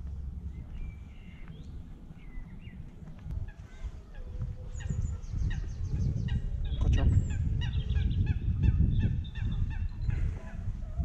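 Water birds calling: a quick run of short, repeated calls, thickest in the middle, over a low rumble.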